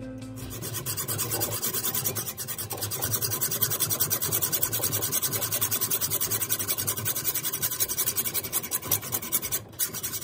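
Hacksaw cutting through a threaded steel rod held in a bench vise: a steady, rapid rasping of the blade's teeth on metal, with a brief pause near the end.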